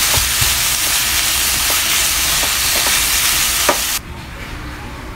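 Sliced beef sizzling in soy sauce in a nonstick frying pan, stirred with a spatula, with a few light scraping clicks. About four seconds in the sizzle cuts off abruptly and only a quieter low hum is left.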